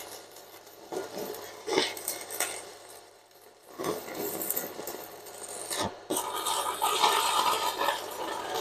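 Stick-welding arc crackling and hissing as a 10-gauge electrode burns along a steel bar, run from a Fugu TB-250 DC inverter welder. The arc fades almost out about three seconds in, then burns steadily again and is loudest near the end.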